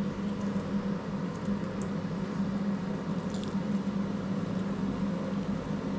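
Steady low hum of a small running motor or fan, with a couple of faint light ticks about three seconds in.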